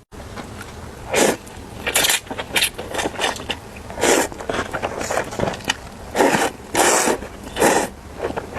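Instant noodles being slurped up noisily, a loud slurp every second or so, with small chewing and mouth clicks in between.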